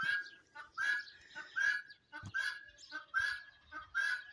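Guinea fowl calling: a steady run of short, repeated calls, a louder one about every three-quarters of a second with a softer note between.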